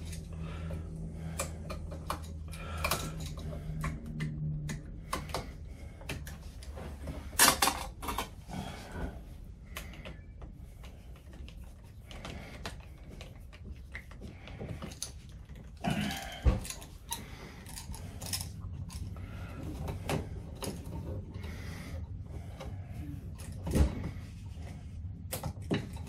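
Small clicks, scrapes and knocks of wires, a hand tool and a new 3-way light switch being handled and connected at an electrical wall box. A few sharper knocks stand out, the loudest about seven and a half seconds in, over a low steady hum.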